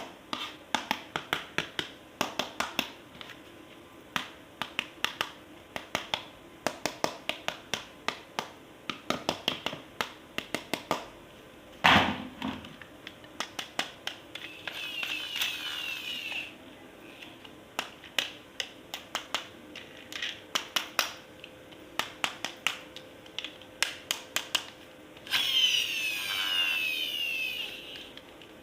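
Plastic toy parts and packaging being handled: many small clicks and taps, with one louder knock about twelve seconds in. Twice there is a higher whirring sound lasting a couple of seconds.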